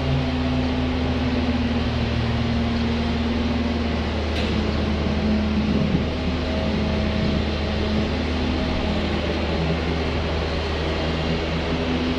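Steady machinery drone: a low hum with a few held tones under an even hiss, without letting up.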